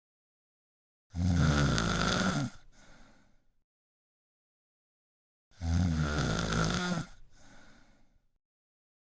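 A person snoring: two low-pitched snores about four seconds apart, each lasting about a second and a half and trailing off into a fainter breath.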